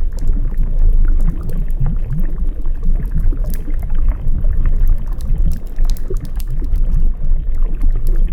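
Water running and sloshing together with a crackling fire: a dense, steady low rush with many scattered sharp crackles.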